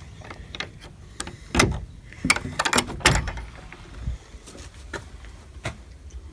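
Privy door being opened and handled: a run of knocks and clatters, loudest between about one and a half and three seconds in.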